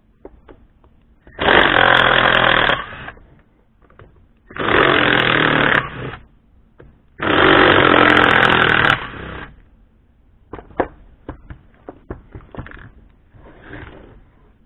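Cordless impact driver hammering in three bursts of a second or two each, working on the screws in the bottom of a Stihl 029 chainsaw's housing. Scattered light clicks and knocks follow in the last few seconds.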